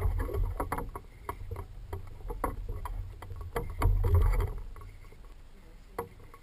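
Irregular sharp clicks and knocks of fishing tackle and a small aluminium boat, over a low rumble on the microphone that swells about four seconds in.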